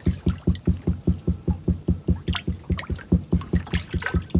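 A boat's motor running, heard as an even, rapid knocking of about six or seven beats a second.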